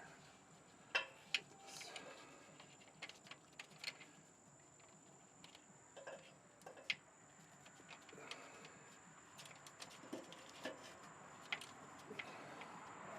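Light, irregular clicks and taps of hand tools and metal parts being handled, with quiet stretches between.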